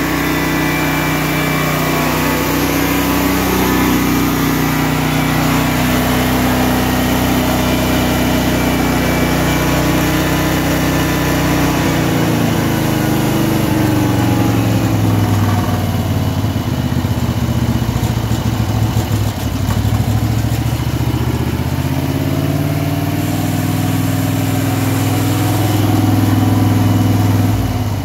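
Caterpillar RP12000E gasoline generator's engine running steadily now that its fuel-starvation fault, traced to the fuel shutoff solenoid, is cured. Partway through, the engine speed shifts and the pitch wavers. It gets noticeably quieter just at the end.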